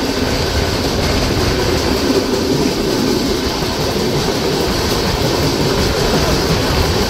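Steady rumble and rattle of Indian Railways passenger trains running at speed on adjacent tracks. The wheels run on the rails while an express's sleeper coaches pass close alongside.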